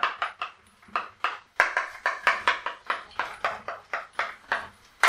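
Chalk tapping and scraping on a blackboard as characters are written: a quick, irregular series of short strokes.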